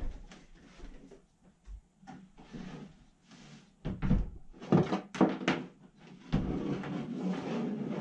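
Knocks and bumps of a small window air conditioner and its brackets being handled against wooden framing, with a cluster of sharp knocks about four to five and a half seconds in, then a rough rubbing noise for the last couple of seconds.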